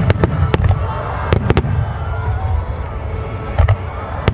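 Aerial firework shells bursting in a rapid, irregular series of sharp bangs over a continuous low rumble.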